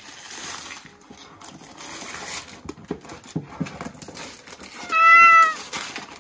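Wrapping paper rustling and crinkling as a present is unwrapped, then a grey-and-white domestic cat gives one short, loud meow about five seconds in.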